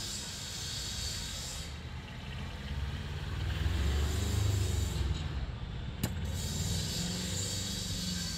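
A steady low rumble and hiss that swells in the middle, with a single sharp tap about six seconds in as a small hammer strikes a part of the dismantled car starter motor.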